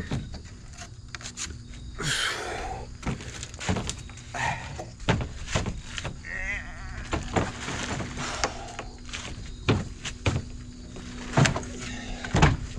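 Repeated knocks and thuds of heavy construction debris being carried and handled, with a short wavering high-pitched sound about six seconds in.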